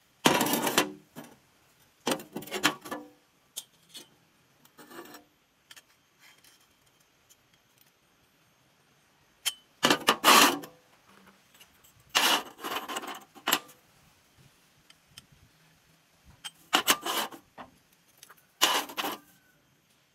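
Short pieces of flat steel bar clanking and scraping against a steel welding table as they are picked up and set down, in several separate bursts with quiet gaps between.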